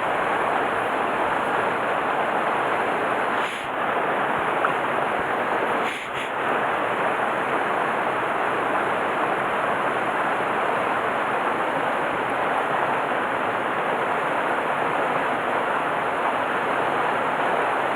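Mountain stream flowing over rocks: a steady rush of water with no break, dipping briefly twice, about three and a half and six seconds in.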